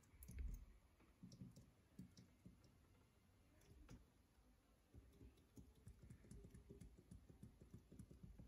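Near silence with faint, scattered small clicks, coming closer together over the last few seconds.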